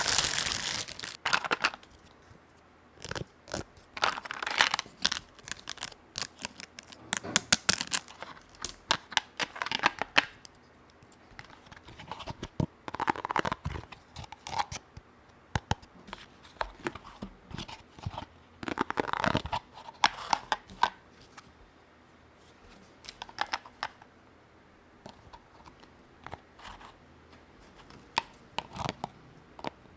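Packaging and small plastic toy parts being unboxed by hand: crinkling and tearing of wrapping with sharp little clicks, in irregular bursts separated by quiet pauses.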